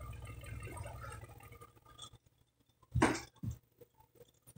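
Knife cutting the tail off a raw whole chicken on a plastic cutting board: quiet slicing, then two short sharp sounds about three seconds in, half a second apart.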